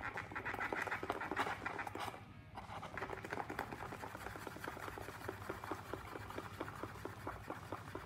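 A sharp point being worked into a small cardboard box to widen a hole: quick scratchy, crackling strokes in the card, several a second.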